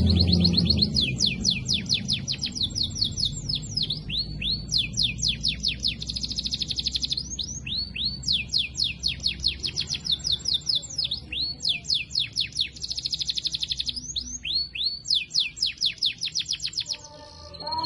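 Female canary song: a fast high trill, then repeated runs of rapid falling chirps in groups of a few seconds, which stop shortly before the end. This is the breeding-drive call that is played to stir other canaries' mating urge.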